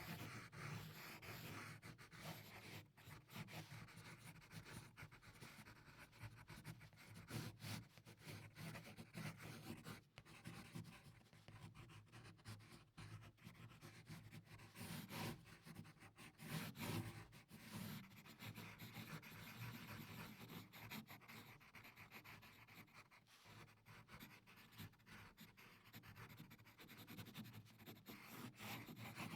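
Graphite pencil drawing on paper: a continuous run of quiet, scratchy strokes, quick back-and-forth hatching broken by brief pauses as the pencil lifts.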